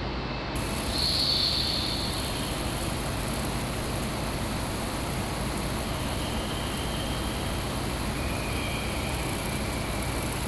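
Steady train-station platform ambience with an electric express train standing idle at the platform, giving a continuous even hum with a few faint high tones.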